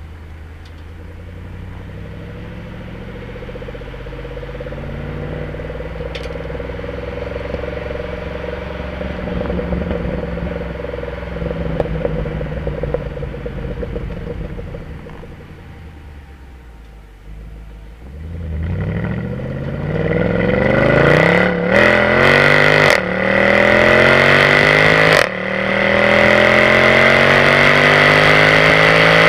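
Mercedes C63 AMG's V8 heard at its exhaust tips: a low, steady exhaust note at light throttle through the first half, then past the middle the car accelerates hard, getting much louder, with the revs climbing in steps through several quick upshifts.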